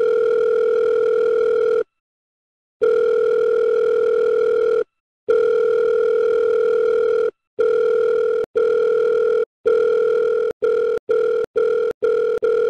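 Telephone ringing tone heard on a call being placed: a loud, buzzy steady tone in bursts of about two seconds. From about eight seconds in, the bursts become shorter and are broken by quick drop-outs.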